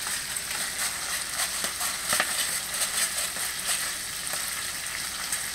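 Chicken pieces frying skin side down in bacon grease in a pan: a steady sizzle with scattered pops and crackles.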